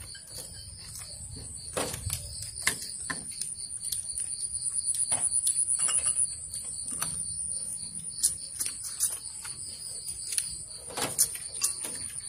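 A high, steady insect trill in the background, with scattered light clicks and taps of chopsticks and spoons against bowls and a glass table during a meal.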